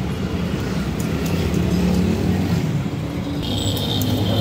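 Steady low rumble of road traffic and vehicle engines, with a thin high tone for about a second near the end.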